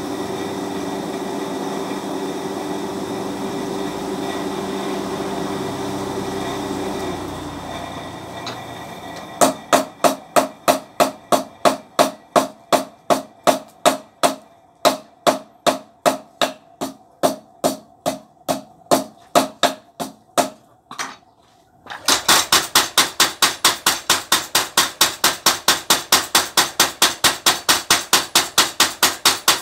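A steady motor hum fades out over the first seven seconds. A run of evenly spaced metal hammer blows follows, about two a second. After a brief pause, a homemade spring power hammer pounds hot steel rapidly, about five blows a second.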